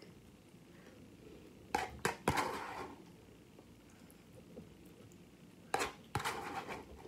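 A metal spoon knocking and scraping against a plastic container while scooping out ground beef. There are two short bouts of sharp taps and scrapes, one about two seconds in and one near the end.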